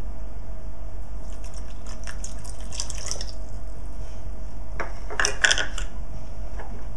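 Water poured from a measuring cup onto granulated sugar in a stainless steel saucepan, splashing and trickling in two short spells, the second louder.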